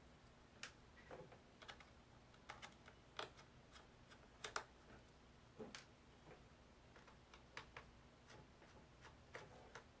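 Faint, irregular small clicks and taps, some in quick pairs: a small screwdriver turning out the bottom-case screws of a 15-inch unibody MacBook Pro, metal tip and screws clicking against the aluminium case.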